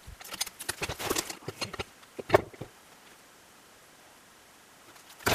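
Boots crunching in snow and wooden knocks as a heavy log is levered onto wooden skids with a cant hook. A sharp knock comes a little over two seconds in, then it goes quiet, and another sharp knock comes near the end.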